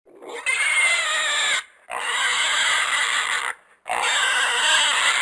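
A horse giving three long, high squealing calls in quick succession, each one to two seconds long with short breaks between them.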